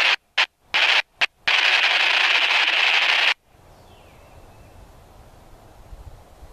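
Railroad scanner radio static: loud hissing bursts that cut in and out several times, then hold for about two seconds and cut off abruptly, leaving faint outdoor background.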